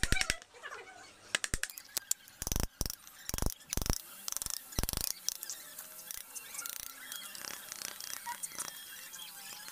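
Wood chisel chopping into a teak block: a handful of sharp knocks over the first five seconds, then fainter ticks of the blade working the cut, with birds chirping in the background.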